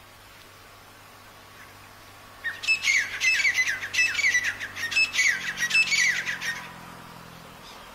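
Black francolin calling: a loud, rapid series of high, downward-sliding notes that starts about two and a half seconds in and stops after about four seconds.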